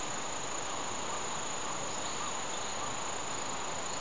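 Insects in the roadside vegetation giving a steady, high-pitched drone over a constant hiss.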